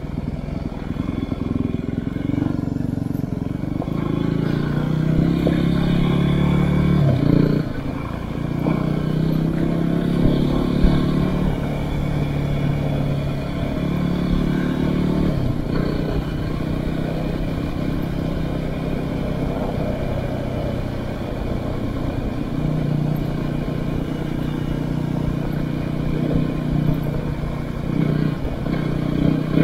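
Yamaha WR250R's single-cylinder four-stroke engine running while the bike is ridden off-road. The engine note holds steady for stretches and shifts pitch a few times as the throttle changes.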